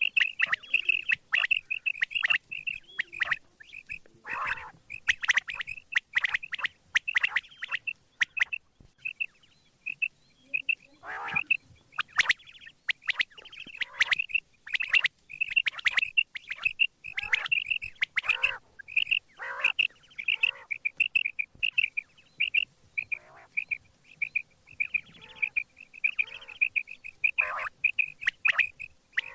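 Quail (batair) calling: a quick run of short, high, sharp notes repeated over and over, broken by brief pauses.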